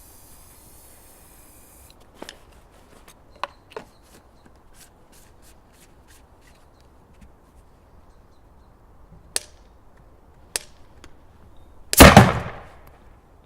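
A hairspray-fuelled potato cannon. There is a short hiss near the start and several sharp clicks over the next few seconds, then the cannon fires with one loud bang about twelve seconds in.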